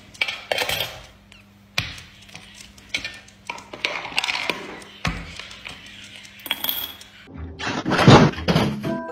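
Coins and a plastic toy coin bank clicking and clinking as a small green parrot handles a coin and drops it into the bank, a series of separate sharp taps and knocks. About eight seconds in there is a louder, rough noise lasting about a second.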